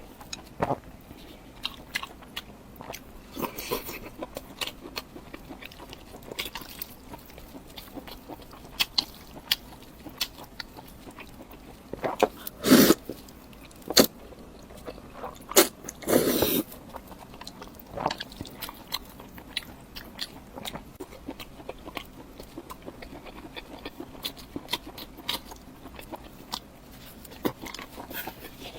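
Close-miked eating: chewing and biting with many small wet mouth clicks. There are a few louder bites or slurps about 13 and 16 seconds in.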